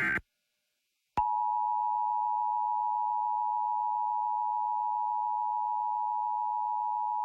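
Emergency Alert System signal: the tail of a SAME data burst cuts off just after the start, then after about a second of silence the EAS two-tone attention signal (853 and 960 Hz sounded together) comes on and holds steady. It is the alert tone that announces a tornado warning.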